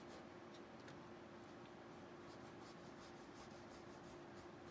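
Paintbrush strokes on a canvas: faint, quick scratchy brushing, a few strokes a second, sparse at first and steadier from about two seconds in, over a faint steady hum.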